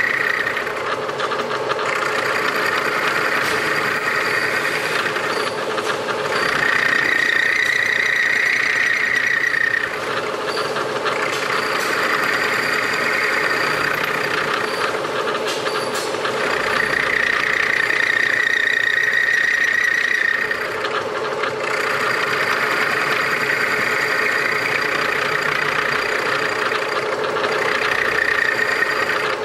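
Vertical milling machine cutting the top end of a BMW motorcycle connecting rod to a 10-degree taper: the spindle runs with a steady hum, and a high, shrill cutting whine comes and goes in spells of a few seconds, about three times, as the cutter works along the rod.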